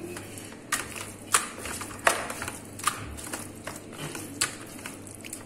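Hands kneading and squishing spice-paste-coated raw beef chops in a stainless steel tray, with about half a dozen sharp clicks and taps as the meat and fingers knock against the metal.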